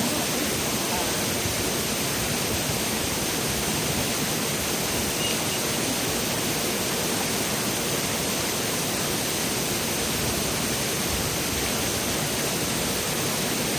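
Steady rushing of a mountain stream, an even wash of water noise without a break.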